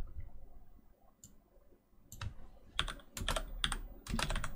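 Typing on a computer keyboard: a quiet pause, then a quick run of key clicks from about two seconds in.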